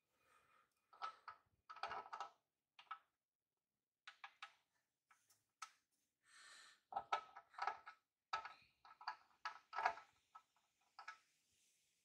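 Light metallic clicks and clinks of a small chain sprocket being handled and fitted onto its shaft on a steel mounting plate, coming in quick clusters of taps.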